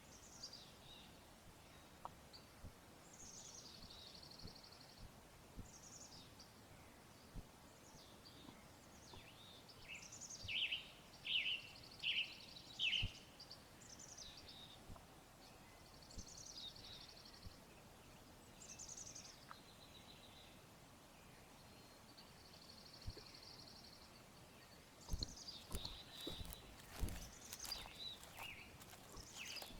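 Several small birds calling in quiet woodland: scattered high chirps and short buzzy trills, with a run of four louder down-slurred chirps about ten to thirteen seconds in. Near the end, a few faint knocks and crunches.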